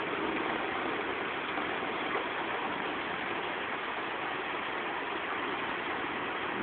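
Steady, even hiss of rain falling during a thunderstorm.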